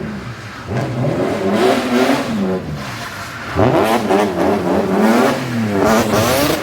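A performance car's engine revving hard, its pitch climbing and dropping several times as the throttle is worked through a drift. The revs jump sharply about three and a half seconds in.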